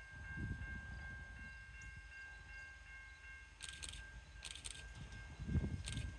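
Faint low rumble of an approaching CN freight train, with a steady faint high-pitched whine and three short hissing bursts in the second half.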